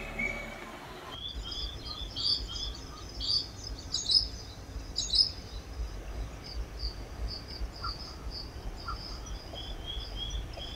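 Songbirds in coastal rainforest singing, many short high chirps and whistled notes repeating one after another, over a low background rumble.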